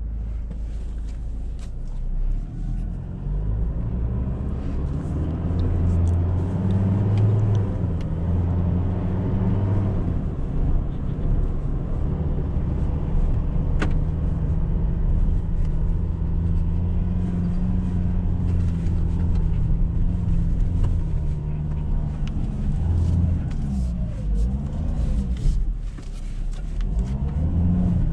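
Ford Ranger pickup's engine heard from inside the cab as the truck drives over a sandy track. It picks up about two seconds in, and its note rises and falls with the throttle.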